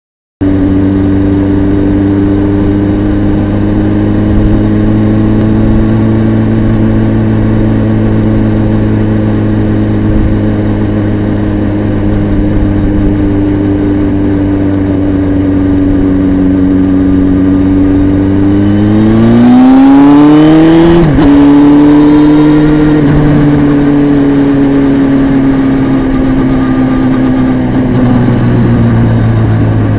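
Honda CBR929RR's 929 cc inline-four engine running steadily, picked up by a microphone inside the bike's under-seat compartment. About two-thirds through, the revs climb, then drop suddenly, and the pitch settles slowly downward over the last few seconds.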